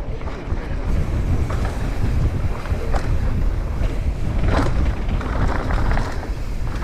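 Wind buffeting an action camera's microphone on a fast mountain-bike descent, over the rumble of tyres rolling on a dirt trail. A few sharp knocks and rattles come from the Commencal Meta AM 29 bike hitting bumps, the loudest about three and four and a half seconds in.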